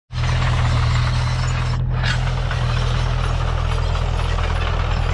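Diesel engine of a red crawler tractor running steadily as it pulls a disc harrow through vineyard soil.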